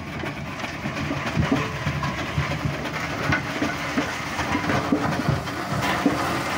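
Aveling 'Advance' steam roller running, with a busy, irregular mechanical clatter.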